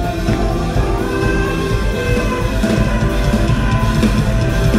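A live rock band playing loud, amplified music with electric guitars, bass, keyboards and a drum kit.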